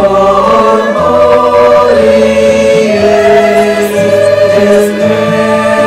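Mixed choir singing a hymn in long held notes that change about once a second, over instrumental accompaniment.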